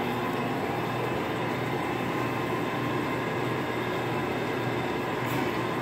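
Steady mechanical hum and hiss of machine-shop background noise, with faint steady tones underneath.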